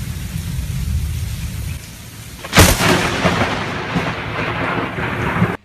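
Steady rain with a low rumble, then about two and a half seconds in the sharp crack of a close lightning strike, followed by rolling thunder that cuts off suddenly near the end.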